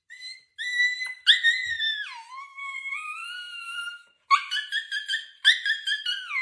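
Young husky-type dog whining and howling in a string of long, high-pitched cries that glide up and down with short breaks. The cries drop sharply in pitch about two seconds in and again near the end.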